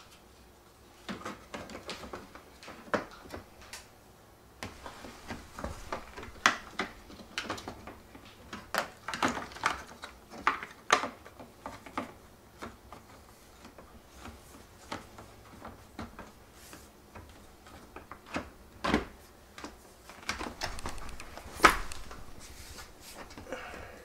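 Hard plastic clicks, taps and rattles as a dishwasher's plastic control panel and its parts are handled and fitted together, coming irregularly with the sharpest knock near the end.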